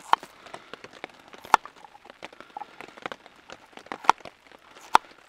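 Knife slicing garlic cloves on a wooden plate: the blade taps down on the wood at an uneven pace, four sharp taps and a few fainter ticks between them.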